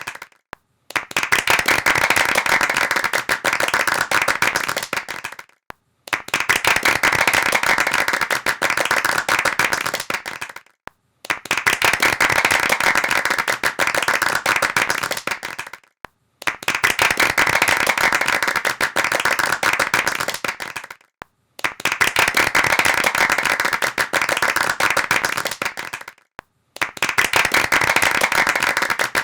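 Rapid hand clapping in repeated takes, each about four to five seconds long and cut off by a short silence.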